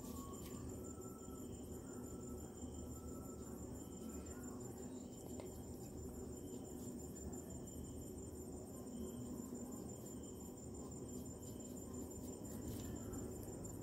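Crickets chirping steadily, a high, evenly pulsing trill over low room hum. A felt-tip sketch pen scratches faintly on paper now and then.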